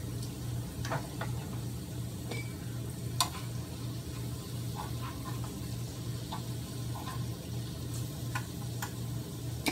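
Sliced garlic frying in hot oil in a skillet, a soft steady sizzle, with a few sharp clicks of a wooden spatula stirring against the pan. A steady low hum runs underneath.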